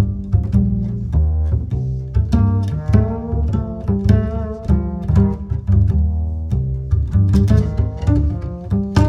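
Background music with plucked and bowed string instruments over a deep bass line and a steady beat.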